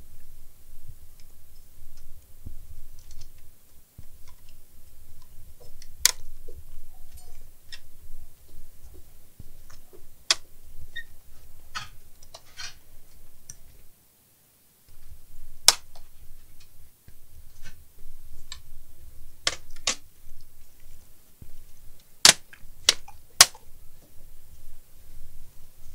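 Irregular sharp clicks and taps of plastic laptop casing and parts being handled during disassembly, with a quick run of louder clicks near the end.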